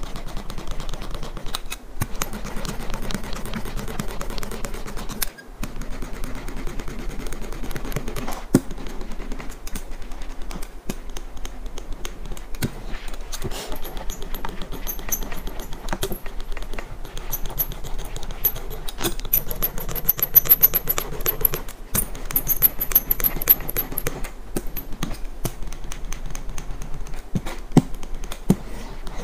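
Grip tape being rubbed and pressed down onto a skateboard deck with a hand tool, a block and a roller: a continuous scratchy scraping of the gritty tape, dense with small clicks, and a few sharper knocks.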